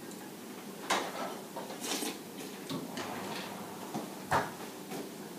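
Metal spoon scraping and tapping in a ceramic bowl while eating: a few short clinks and knocks, the loudest a little after four seconds in.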